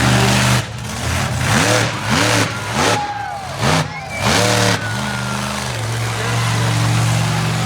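Monster truck engine revved hard in about four quick bursts, each rising and falling in pitch, then settling into steady running.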